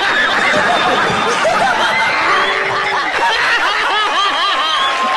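A crowd of people laughing hard together, many voices at once, with hands clapping underneath.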